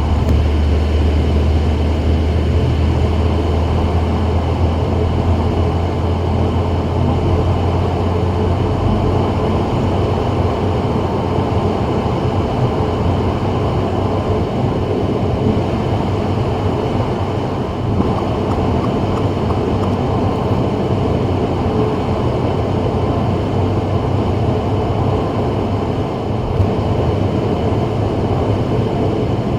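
A car driving on a wet freeway: steady tyre and road noise with engine hum. A deep low rumble fades about seven seconds in.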